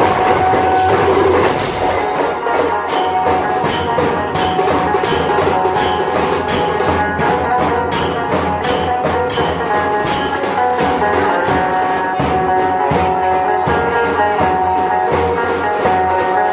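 Dhol tasha drumming with a tune carried over it: a dense drum roll for the first couple of seconds, then steady sharp strikes about twice a second under the held melody notes.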